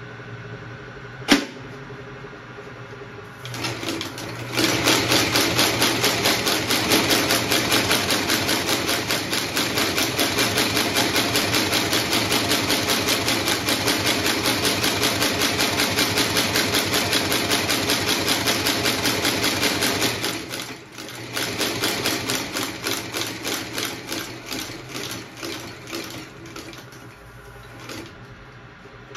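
Outsole stitching machine sewing a new sole onto a leather work boot, running at a fast, even clatter of stitch strokes. It then slows, the strokes spacing out one by one until it stops. A single sharp click comes about a second in, before the machine starts.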